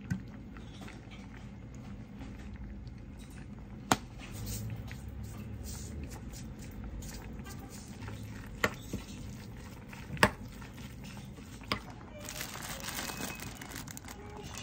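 Kitchen handling sounds over a low steady hum: four sharp clicks and taps spread through, as sesame oil and sesame seeds go into a ceramic bowl of mashed tofu and spinach, with a brief rustling near the end.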